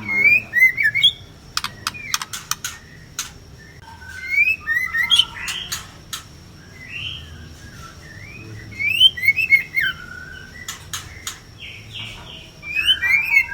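White-rumped shamas calling in short clusters of whistled notes that glide up and down, mixed with sharp clicks, a burst every couple of seconds.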